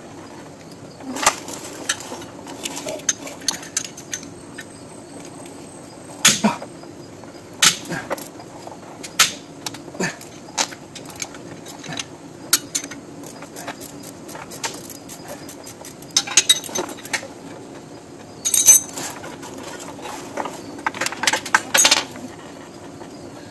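Steel combination wrenches clinking and knocking irregularly against the strut rod bolt and nut of a 1965 Corvair's rear suspension as they are worked loose, one wrench hooked onto the other for leverage.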